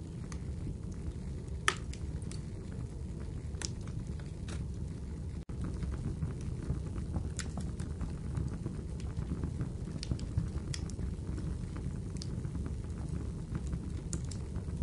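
Fire crackling: scattered sharp pops and snaps over a steady low rumble, with a momentary break in the sound about five seconds in.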